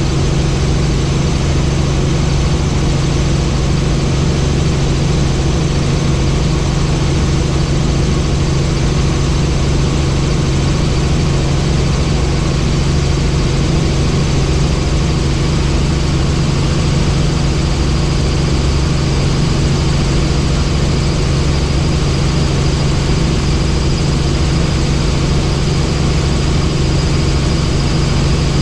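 Helicopter in flight: a steady, loud drone of rotor and turbine with a strong low hum, unchanging throughout.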